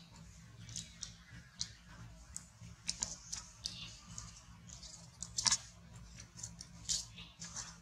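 Dry leaf crackling and crinkling in irregular little clicks as a baby macaque handles and mouths it, with a louder crackle about five and a half seconds in.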